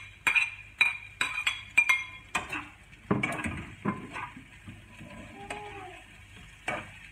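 A metal spatula clinks and scrapes against a plate and a nonstick wok as sliced chayote is tipped into the pan and stirred. A quick run of sharp ringing clinks comes first, then a few heavier knocks and softer scraping, over a light sizzle of the onions and garlic frying in oil.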